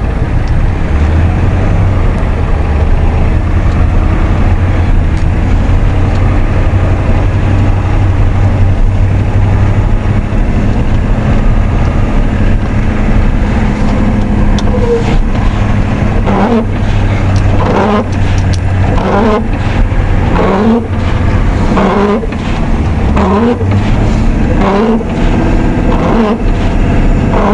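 1990 Ford F250's 7.3-litre IDI V8 diesel engine running steadily under load. From about halfway, a short rising sound repeats roughly every second and a half over the engine.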